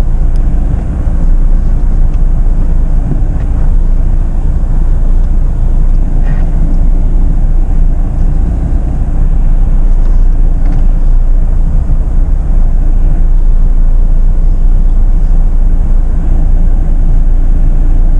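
Jeep Meridian SUV crawling slowly over an off-road trail near idle: a steady low rumble of engine and drivetrain.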